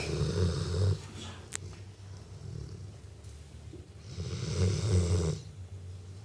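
A sleeping dog snoring: two snores, one right at the start and one about four seconds in, each lasting about a second, with quieter breathing between.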